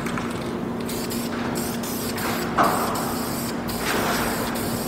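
Aerosol spray can hissing as enamel primer is sprayed onto a plastic football helmet shell. It sprays in spurts with brief breaks between passes, and one spurt about two and a half seconds in is louder.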